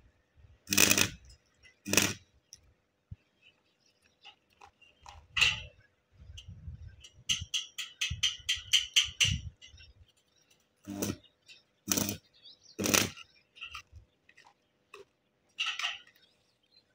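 Sharp metal knocks and clinks on the steel bars of a gate being worked on by hand: single strikes spaced a second or so apart, with a quick run of about ten lighter taps near the middle.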